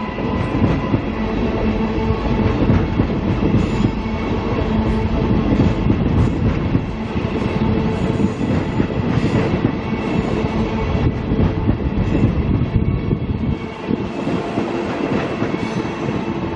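Queensland Rail electric suburban train running past close by, its wheels rolling over the rails and through the pointwork, with a steady hum over the running noise.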